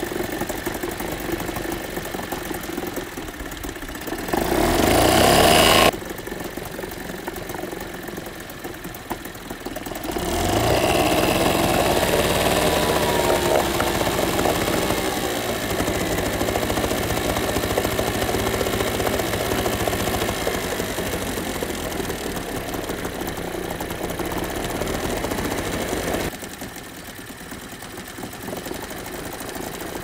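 1992 Yamaha 4 hp two-stroke outboard running on a newly fitted replacement carburetor, its lower unit in a bucket of water. It is revved briefly about four seconds in and dropped back sharply. It is revved up again about ten seconds in and held higher, then settles lower near the end.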